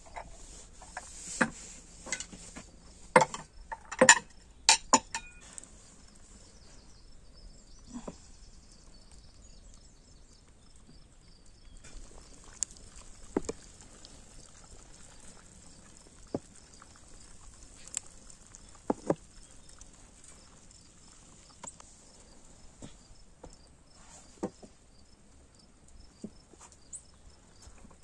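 Clay pots, dishes and bread being set down and moved on wooden boards and a table: scattered sharp knocks and clinks, a quick cluster in the first five seconds, then single ones spread out.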